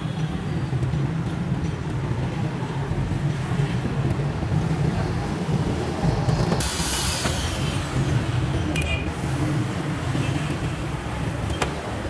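Steady low background rumble, with a brief hiss about seven seconds in and a single click near the end.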